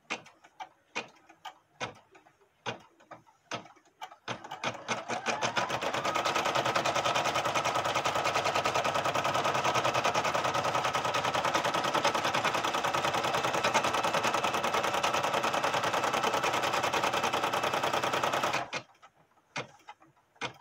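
Brother PE770 embroidery machine sewing a placement stitch. A few separate clicks come first, then the needle speeds up with a rising whine into a steady fast stitching rhythm, which stops suddenly near the end, followed by a few more clicks.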